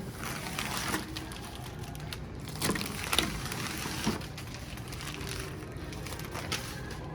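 Protective plastic stickers being peeled off, crackling, with a few louder crackles around three and four seconds in.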